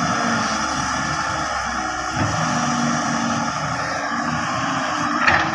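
Diesel engine of a Fiat-Hitachi FH150 wheeled excavator running steadily while its boom and bucket dig and lift clay.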